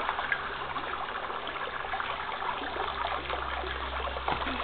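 Water from a garden hose running steadily into a pool, a continuous trickling with small splashes.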